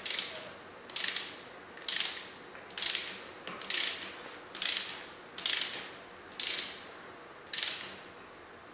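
15 mm ratchet socket wrench tightening a bicycle's rear axle nut a little at a time. The pawl clicks in a short burst on each back-swing of the handle, about one stroke a second; the strokes stop near the end.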